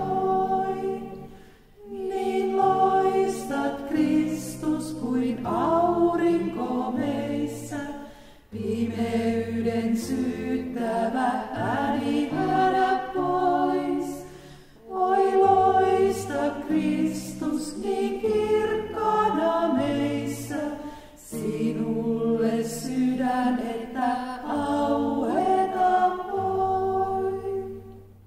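A small group of women singing a short hymn phrase over and over, accompanied by acoustic guitar. Each phrase runs about six seconds with a brief breath between, and the song ends just before the end.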